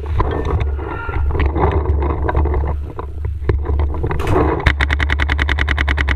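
Paintball marker firing a rapid string of shots, about ten a second for about a second and a half near the end, over a steady low rumble.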